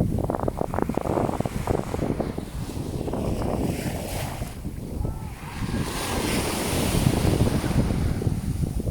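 Sea waves washing onto the shore, the hiss of the surf swelling about two-thirds of the way through, under heavy wind buffeting on the microphone.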